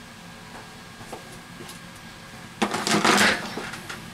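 Plastic spring clamps clattering as they are picked up and handled: a few faint clicks, then about two and a half seconds in a loud jumble of knocks and rattles lasting about a second.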